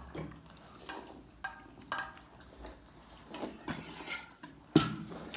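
Dishes and utensils being handled at a table: scattered light clinks and scrapes, with one sharp clink near the end, the loudest sound.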